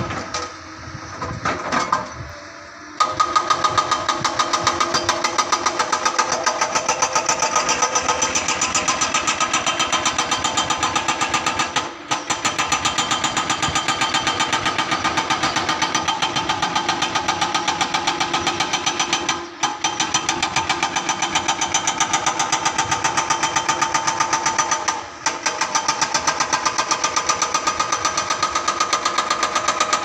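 Tracked excavator working, its engine running under load with a fast, even pounding rhythm. The sound is softer for the first few seconds, then steady, with three brief breaks about twelve, twenty and twenty-five seconds in.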